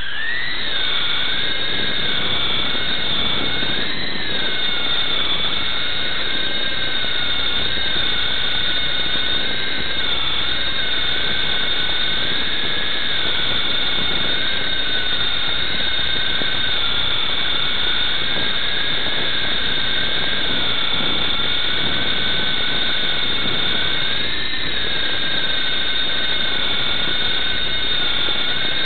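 Blade MD520 micro RC helicopter's electric motor and rotors spooling up, then running with a steady high whine whose pitch wavers up and down as the throttle changes in flight.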